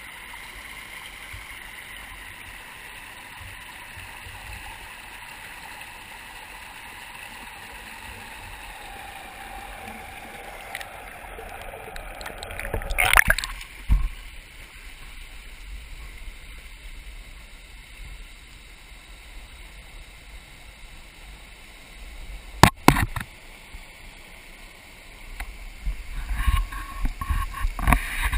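River water gurgling and lapping around a camera held at the surface of a rocky stream pool, heard steady and somewhat muffled. About 13 s in there is a loud splashing rush, a sharp knock a little past 22 s, and choppy splashing near the end as the water gets close and turbulent by a small cascade.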